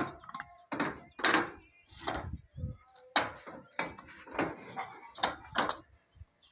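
An irregular string of sharp knocks and clatters, about two a second, from hard building materials and tools being handled and struck during roof construction, with faint ringing after some of the hits.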